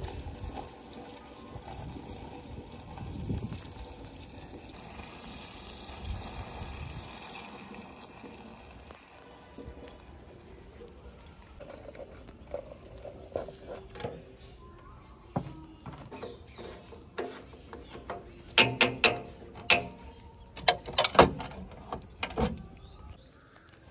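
Mud tipped from a tractor loader's bucket into a trolley, a rushing pour of loose earth. Near the end comes a cluster of loud sharp knocks.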